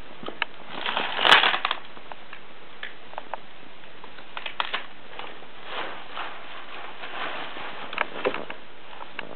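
Plastic packaging crinkling and crackling as a baby handles it, in scattered bursts of small crackles. The loudest rustle comes about a second in, with another cluster near the end.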